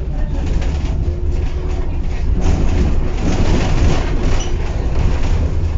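Tatra KT4D tram heard from inside the passenger car while running along the track: a steady low rumble of wheels and running gear, with a rattle and rush that grows louder about two seconds in.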